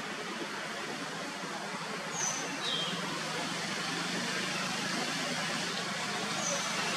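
Steady rushing outdoor background noise with three short, high, falling bird chirps: two close together about two seconds in, and one near the end.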